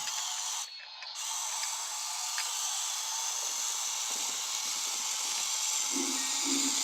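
Geo Trax toy train's small electric motor and plastic gears running with a steady whir, cutting out briefly about a second in and then running on. A short tune starts near the end.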